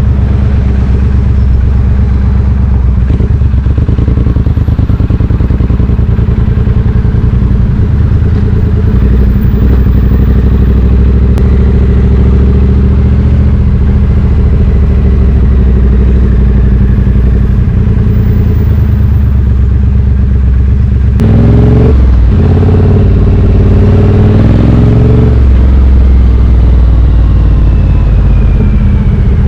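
2020 Triumph Street Twin 900's parallel-twin engine through British Customs slash-cut exhaust tips, running at steady low revs. About two-thirds of the way through it revs up twice in quick succession, the pitch climbing each time, then settles back to a steady note.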